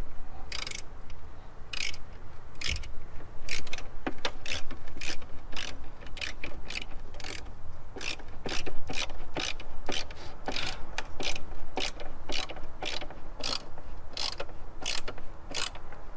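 Ratcheting screwdriver clicking as screws are driven through a subwoofer's mounting ring into its carpeted enclosure: a run of sharp clicks, about two or three a second, with short pauses between turns.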